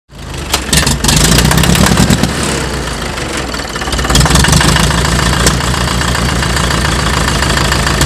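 A 1952 International Harvester TD-9 crawler's four-cylinder diesel engine running loud, with an even, rapid firing beat. The engine note picks up about four seconds in.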